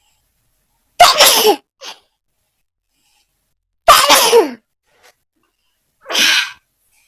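A woman sneezing three times, about two and a half seconds apart, the third sneeze softer than the first two.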